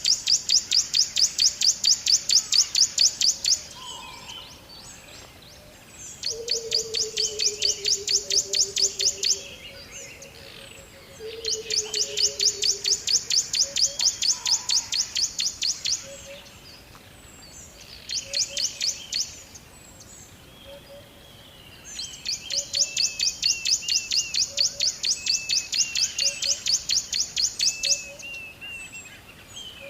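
Rainforest wildlife calls: a high, rapidly pulsing call of about ten pulses a second comes in repeated bursts of two to four seconds. Between them are small chirps and, twice, a low whistle that slowly falls in pitch.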